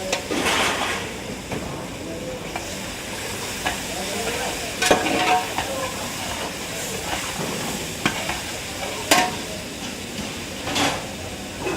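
Metal utensil stirring and scraping in a cooking pot, with sharp knocks and scrapes every second or two over a steady frying sizzle.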